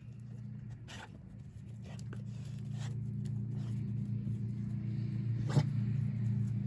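A motor running with a steady low hum. A few sharp clicks and rustles sound on top of it, the loudest about five and a half seconds in.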